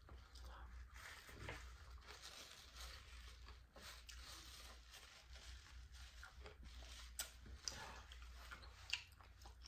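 Faint chewing and wet mouth sounds of someone eating a spoonful of cheese grits, with scattered soft clicks and a couple of sharper ticks near the end.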